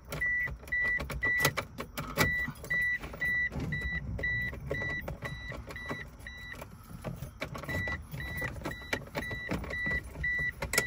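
Car's dashboard warning chime beeping steadily, about three short beeps a second, sounding as the key goes into the ignition; it stops for about a second past the middle and then resumes. Scattered clicks and knocks of the key and hands at the dash sound alongside it.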